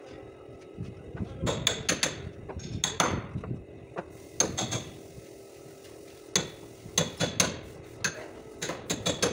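Hammer striking the sheet-metal rear body panel of a car, in irregular clusters of sharp, ringing blows with short pauses between them.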